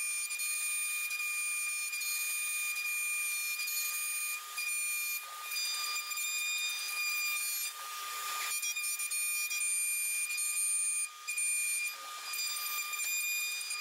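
CNC router spindle whining steadily at a high pitch while its end mill cuts a pocket in a wooden blank. About eight seconds in there is a brief rush of cutting noise, and the level dips for a moment a few times.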